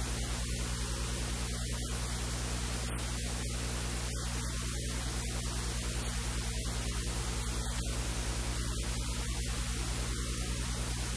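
Steady electrical hiss over a strong low mains hum, unchanging, with no other sound coming through.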